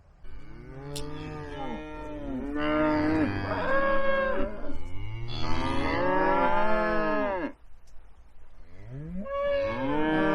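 Several cattle mooing at once, long overlapping calls that rise and fall in pitch. The mooing breaks off about seven and a half seconds in and starts again a second or so later.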